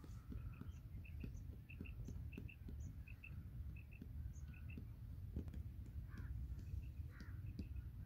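A bird calling over and over: short paired high notes repeated about every two-thirds of a second, over a low rumble.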